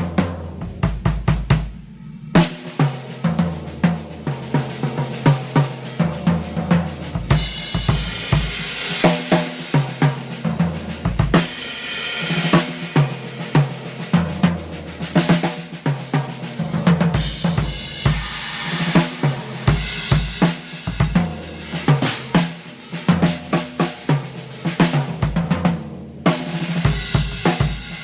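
Gretsch Broadkaster drum kit being played as a sound test: a groove of kick drum, snare, hi-hat and cymbals. There are brief breaks about two seconds in and again near the end.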